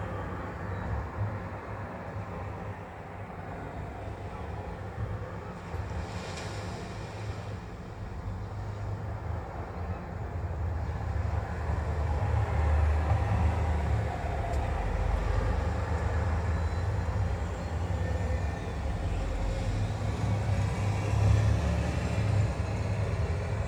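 Low engine rumble of a bus passing on the road, over steady street noise, getting louder about halfway through.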